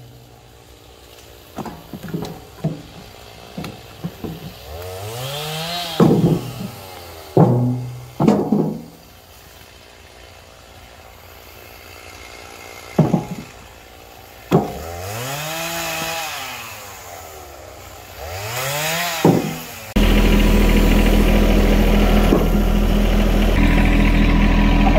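Heavy thuds of short logs being tossed into a tractor's steel loader bucket, while a chainsaw revs up and falls back a few times in the background. About 20 seconds in the sound cuts to a tractor engine running steadily.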